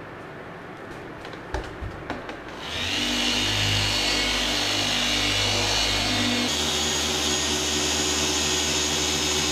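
A few clicks, then an electric machine polisher is switched on about three seconds in and runs with a steady motor hum and whine; a little past halfway its speed changes and it runs on steadily at the new setting.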